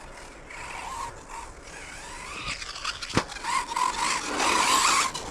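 Electric 1/10 RC buggy with a 4250 kV brushless motor running on a carpet track: motor whine wavering with the throttle and tyres scrubbing on the carpet, getting louder in the second half. One sharp knock about three seconds in.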